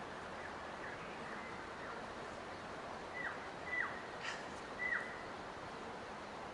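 Steady hiss of outdoor forest ambience with a bird calling: three short downward-slurred whistles between about three and five seconds in, after fainter similar notes in the first two seconds.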